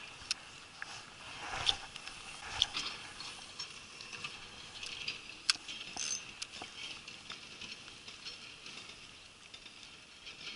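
Irregular light taps and clicks against a waterproof camera housing, heard muffled through the case, over a steady faint hiss.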